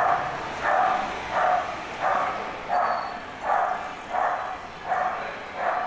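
A dog barking over and over in a steady rhythm, about nine barks, one every two-thirds of a second.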